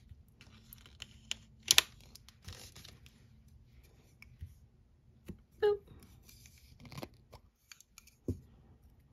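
Nail-stamping tools being handled: scattered small clicks, taps and short scraping rustles from a plastic scraper card, a metal stamping plate and a clear jelly stamper. The loudest is a sharp scrape nearly two seconds in.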